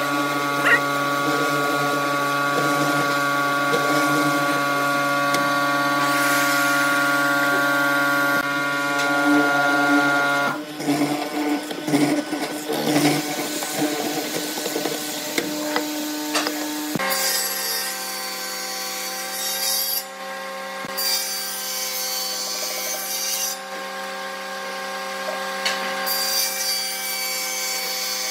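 A hollow-chisel mortising machine runs with a steady motor hum while its chisel plunges into wood to cut square mortises, rougher and choppier for several seconds before it stops. About seventeen seconds in, a table saw takes over, cutting tenon cheeks in three passes with short breaks between them.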